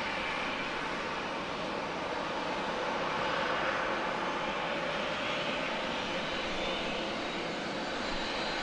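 Twin-engine jet airliner's engines running as it touches down and rolls out along the runway: a steady roar that swells a little about three seconds in, then eases.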